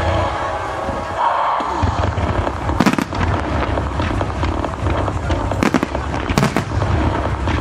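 Fireworks exploding in a music-synchronised starmine display, with sharp bangs about three seconds in and twice more near six seconds, over recorded music with a steady beat.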